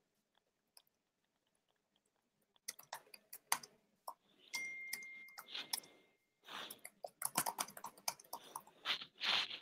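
Faint scattered clicks and short rustling noises, with a thin steady tone lasting under two seconds about halfway through.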